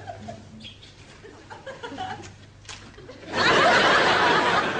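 Studio audience laughing: a loud swell of laughter breaks out about three seconds in, after a quieter stretch with a few faint sounds.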